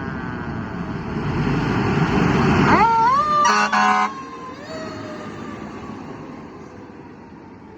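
Fire engine passing on an emergency run: its siren winding down, engine and road noise swelling to a peak, then a quick rising siren whoop and a short air horn blast about three and a half seconds in. The sound then fades as the truck moves away.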